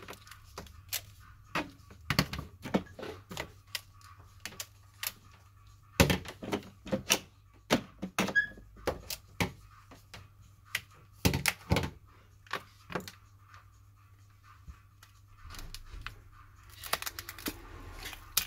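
Plastic opening tools clicking and tapping against a Samsung Galaxy A3's glued LCD as it is pried off the phone: irregular sharp clicks and knocks, loudest about six seconds in and again around eleven to twelve seconds in.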